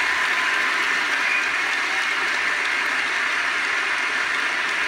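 A large audience applauding, a steady dense clapping heard through a television's speaker.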